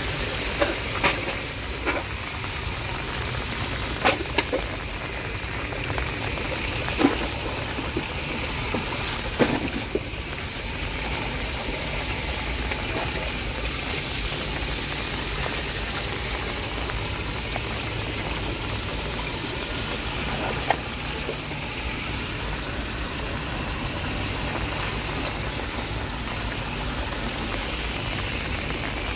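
Rainwater running over a street storm drain grate and draining through it in heavy rain, a steady rushing noise. A few sharp taps stand out, most of them in the first ten seconds.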